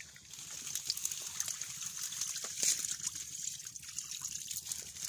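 Water trickling through shallow muddy water, a steady fine splashing that gets louder shortly after it begins.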